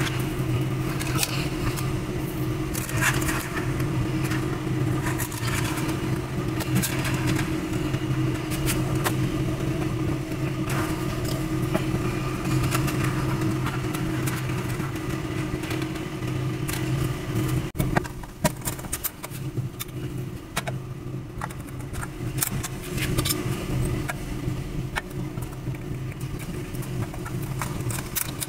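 A steady low motor hum, engine-like, runs under light clicks, rattles and rustles of wires and metal as a fluorescent light fixture is rewired and its tubes fitted by hand; one sharp click stands out about two-thirds of the way through.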